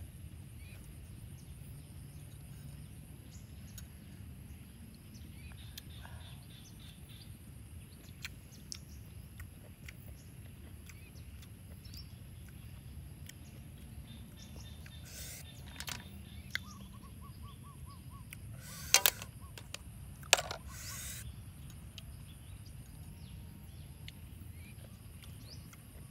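Faint bird calls over a steady low rumble, with a cluster of short, sharp sounds a little past the middle, the loudest two about a second and a half apart.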